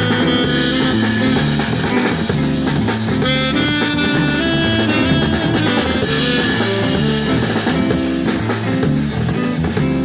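Live band playing a jazzy tune, with drum kit and guitar over a moving bass line.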